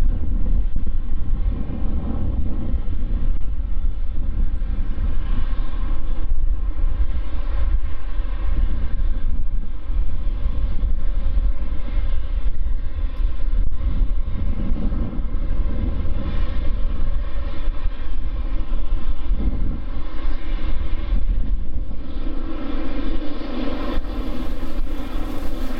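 Boeing 777-200F freighter's twin GE90 turbofan engines running at taxi power as the jet rolls past, a steady whine with several tones over a low rumble, growing a little fuller near the end.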